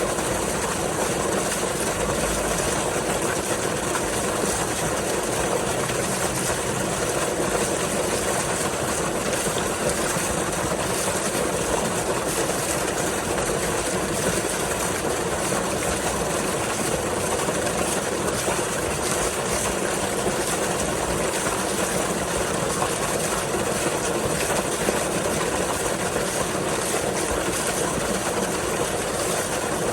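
Pumped water gushing steadily from an outflow and pouring into the marina, a continuous rushing noise that doesn't change.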